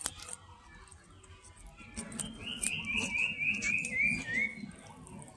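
A cat chewing a raw fish, with short wet crunching clicks of its teeth. From about two seconds in, a bird calls a quick run of about eight short falling chirps.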